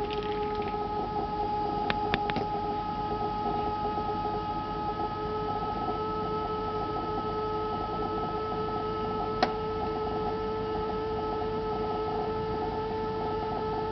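Refrigerator running with a steady hum of several held tones, a noise its owner does not take for a fridge's normal sound. Three quick clicks come about two seconds in and one more just past the middle.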